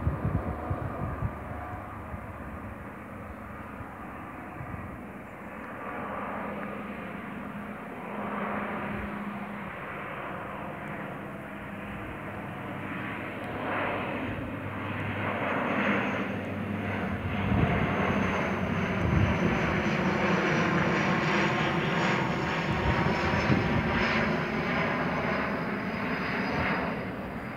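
Twin-engine turboprop airliner on landing approach with its gear down: a steady propeller and engine drone that grows louder as the aircraft comes overhead. In the second half a high turbine whine slides slowly down in pitch.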